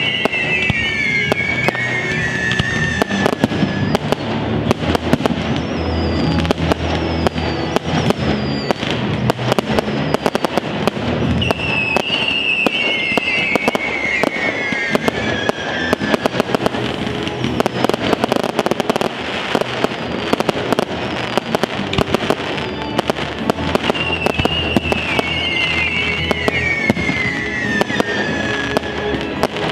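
Fireworks display: a steady stream of crackling, popping bursts and bangs, with music playing alongside, a falling melodic phrase coming back about every twelve seconds.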